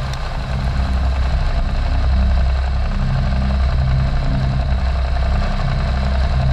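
Ducati Panigale V2's 955 cc Superquadro V-twin engine idling, a deep, uneven beat.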